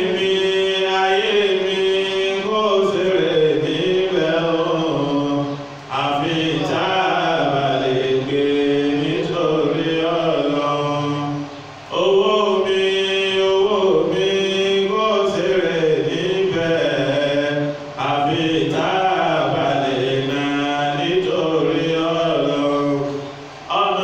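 A man's voice chanting a melodic line into a handheld microphone, in four phrases of about six seconds each, each ended by a short pause for breath.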